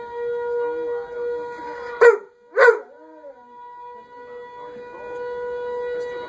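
Civil defense siren holding a steady-pitched wail that swells and fades in loudness, with a black Labrador howling along in wavering, bending notes. About two seconds in, the dog gives two short, loud cries half a second apart.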